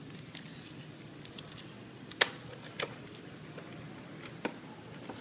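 Plastic retail packaging handled and opened by hand: a brief crinkle, then a few sharp plastic clicks and snaps, the loudest a little over two seconds in.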